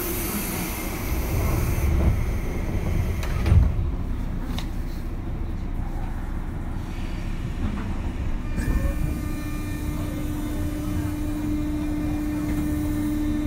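Onboard running sound of a JR 201 series thyristor-chopper electric train: low rumble of the train on the rails, with a burst of hiss at the start and a sharp thump a few seconds in. About two-thirds of the way through, a steady electric hum sets in over the rumble.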